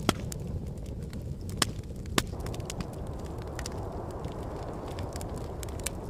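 Wood fire crackling, with scattered sharp pops, the loudest near the start and twice around two seconds in, over a steady low rush of wind.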